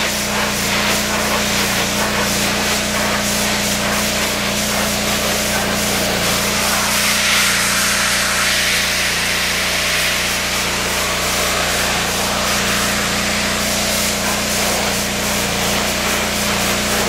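Commercial pressure washer running, its engine humming steadily under the hiss of the high-pressure water jet spraying porch steps. The spray gets louder and brighter for a few seconds near the middle.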